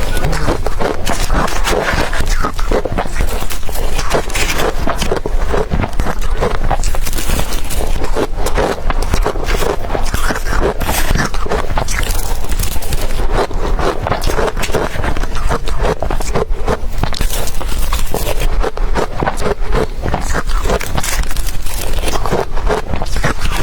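Blender-crushed ice being bitten and chewed: a loud, continuous crunching made of dense crackly clicks, with no pauses.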